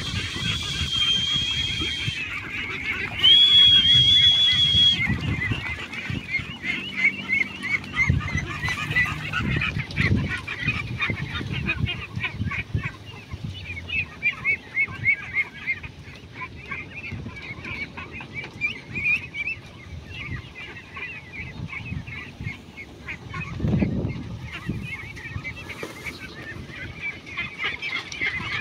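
A large flock of young ducks calling all at once: a dense, continuous chatter of short overlapping quacks. Two steady high tones, each about two seconds long, sound over it in the first five seconds, and a few low thumps come through now and then.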